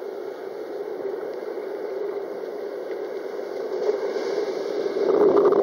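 Ocean water rushing and sloshing around a camera held at the surface among breaking surf, a steady muffled wash that swells louder near the end.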